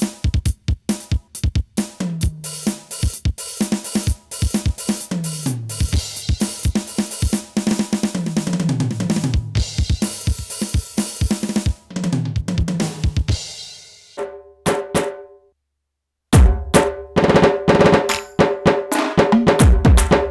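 Electronic drum kit played through an Aroma 20-watt drum amplifier: a busy drum beat with cymbals and several tom fills running down in pitch. The playing stops for about a second some 15 s in, then starts again louder, with heavy bass-drum strokes.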